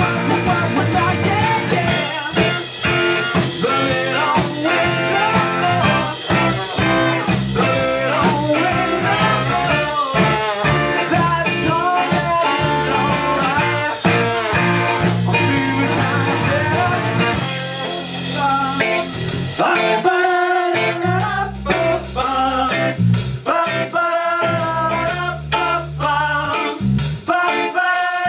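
A ska-punk band playing live: electric guitar, bass and drums, with the low end dropping out for a moment about twenty seconds in.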